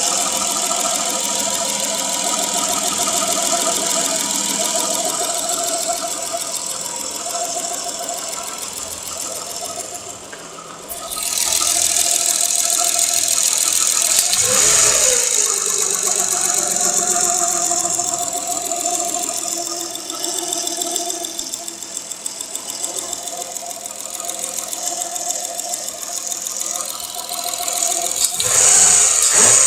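Nissan RB25DE 2.5-litre straight-six running with a hum and squeal that the owner puts down to the timing-belt drive, still there with no accessories fitted; it grew louder after a new timing belt and rollers went on. The engine gets louder about eleven seconds in, then falls in pitch around fifteen seconds as the revs drop back.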